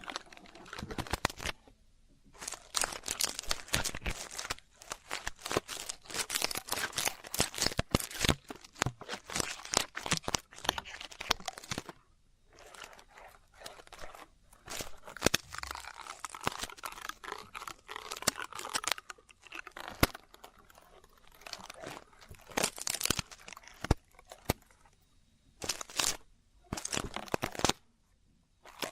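Close-up ear-cleaning sounds: a tool scratching, scraping and crackling against a microphone's ear in quick, irregular strokes, with brief pauses about two seconds in, near the middle and near the end.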